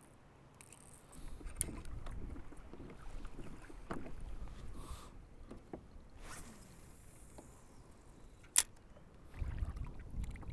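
Water sloshing against a kayak hull with a low rumble as the kayak moves on the water, and small clicks of fishing gear being handled. One sharp knock comes near the end.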